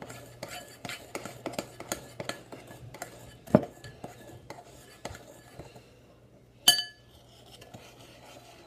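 A spoon stirring brownie batter in a bowl, clicking and scraping against its sides. There is a heavier knock a little before halfway, then a short lull, and a single ringing clink against the bowl about two-thirds of the way through.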